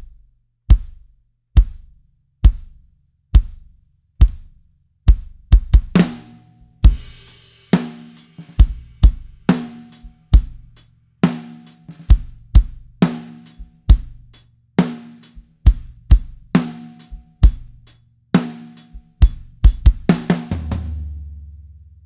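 18-inch kick drum played on a drum kit, sounding massive: it beats alone about once a second for the first six seconds, then a full groove joins with snare and hi-hat. A quick fill comes near the end, and the last low hit is left ringing.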